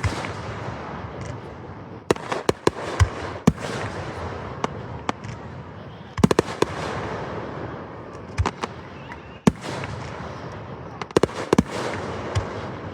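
Aerial fireworks display: sharp shell bursts every second or two, some in quick clusters, each followed by a crackling tail that fades away.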